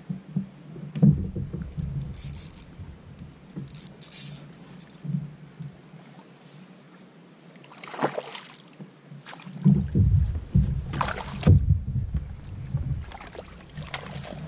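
Wind buffeting the microphone and water sloshing against a kayak, in gusts. There is a quieter stretch in the middle, louder gusts come back about two-thirds through, and a few short rustles and crackles are mixed in.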